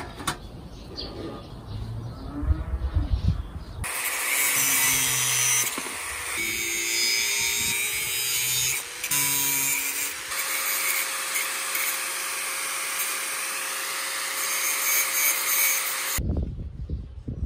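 Handheld angle grinder with an abrasive cut-off wheel cutting through a thin metal strap held in locking pliers: a steady whine under loud grinding, starting about four seconds in, wavering as the wheel bites, and stopping shortly before the end. Before the cut, a few seconds of stainless steel pans being handled and set in place.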